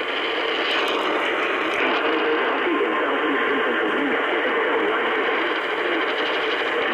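Steady radio static: an even hiss from a receiver on a weak or empty signal, thin and band-limited, with faint garbled sound under it.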